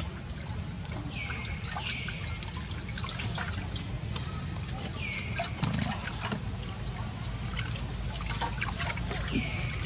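Macaques drinking from a water jar, with small splashes, slurps and drips of water. A few short high falling calls are heard over it, and a thin steady high whine runs beneath.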